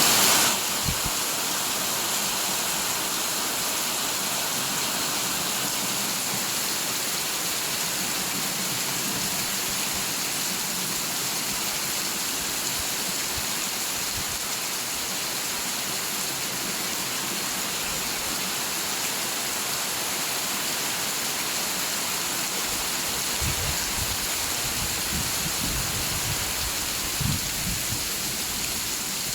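Steady rain falling, a dense even hiss with no letup. A few brief low rumbles come in near the end.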